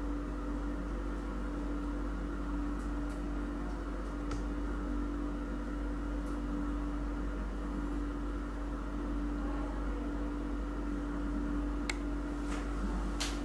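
Steady mechanical hum with a constant tone, with a few light clicks near the end.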